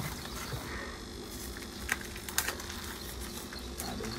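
A few light, sharp clicks and taps about halfway through, over a faint steady background of insect hum.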